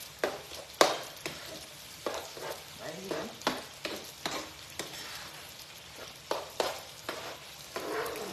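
A metal spoon scraping and knocking against a frying pan as scrambled eggs are stirred, in irregular strokes over a steady frying sizzle.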